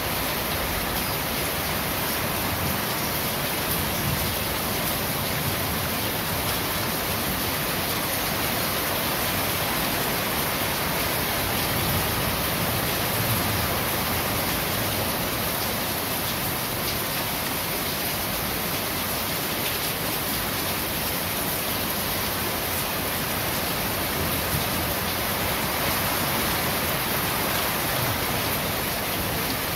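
Steady rain falling on corrugated roofing sheets, an even, unbroken rush of water.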